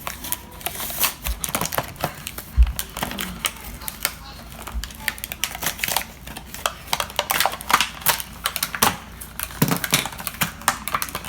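Plastic packaging of a Nerf Jolt blaster being handled and pried open: a dense, irregular run of crackling plastic clicks and rustles, with a few dull thumps in the first few seconds.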